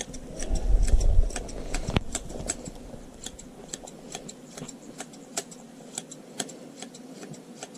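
Hand sheep shears snipping through fleece: a quick, irregular run of sharp metallic clicks, a few a second, with a low rumble in the first two seconds.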